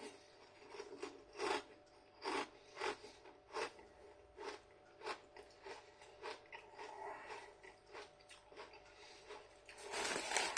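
Close-up chewing of a large hand-cooked potato crisp: sharp crunches about every two-thirds of a second, turning to softer chewing after about six seconds, with a louder burst of crunching near the end.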